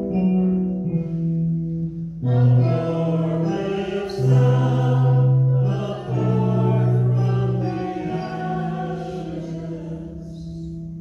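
Church congregation singing to instrumental accompaniment, long notes held and changing every second or two.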